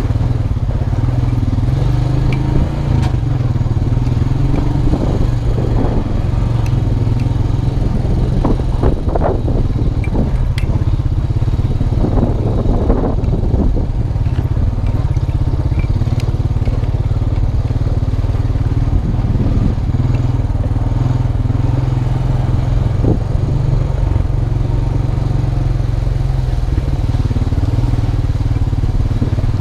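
A 2002 Honda Rancher 350 4x4 quad's single-cylinder engine running steadily while riding, with a rougher stretch of knocks and rattles from about eight to fourteen seconds in.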